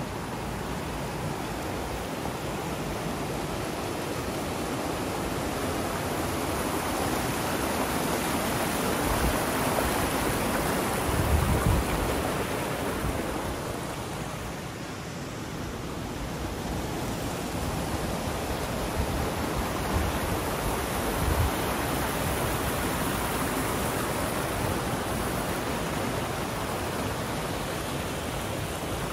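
Steady rushing noise that swells and dips slowly, with a few short low thumps about a third and two-thirds of the way through.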